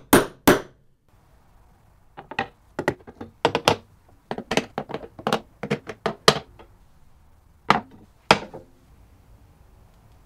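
A run of sharp, irregular knocks of hard objects: two loud ones at the start, a quick scattered cluster of about a dozen from about two seconds to six and a half seconds in, then two more near the end.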